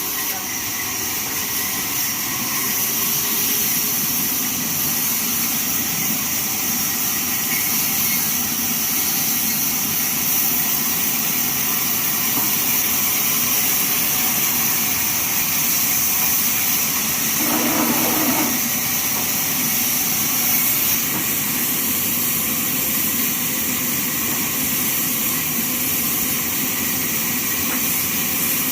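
Band sawmill running steadily, a continuous machine noise with a high whine from the blade and drive. A short louder burst comes about two-thirds of the way through.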